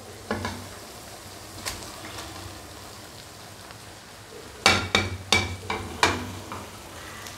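Masala sizzling in a non-stick wok, with sharp knocks of a slotted spatula against the pan as fried fish pieces are laid into it. A quick cluster of louder knocks about five to six seconds in is the loudest part.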